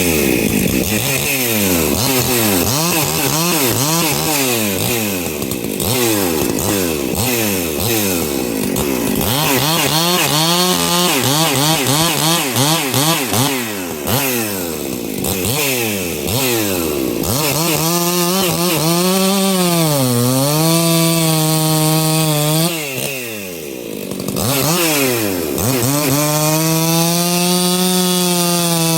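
A 60cc two-stroke chainsaw revving up and dropping back again and again, then held at full throttle with brief dips in pitch as it cuts through firewood.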